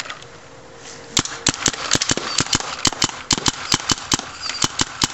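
Semi-automatic paintball marker, most likely a Kingman Spyder VS3, firing a fast, uneven string of sharp shots, about four or five a second, starting about a second in.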